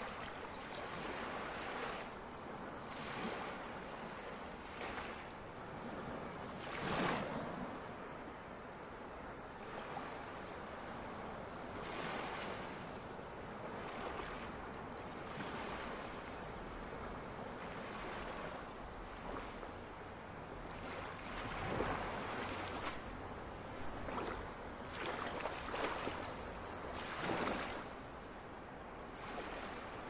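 Ocean surf: a steady wash of small waves breaking on the shore, with a louder wave swelling and falling away every few seconds.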